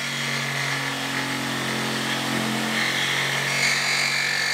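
Handheld jigsaw running steadily as its blade cuts through a thick board of London plane wood.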